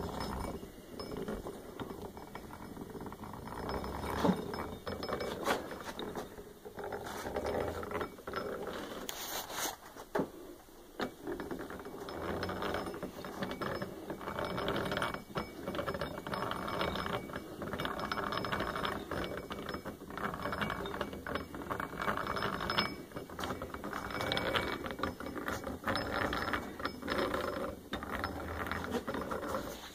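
Restored McCormick-Deering sickle blade grinder being cranked by hand: its gear train meshing with a run of small clicks and ticks while the grinding wheel spins, the sound swelling and easing as the crank turns.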